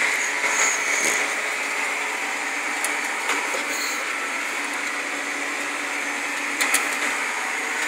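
Steady drone of a tractor's engine and drivetrain heard from inside the cab while it pulls a disc through a field, with a few light clicks or rattles about 1, 3 and 7 seconds in.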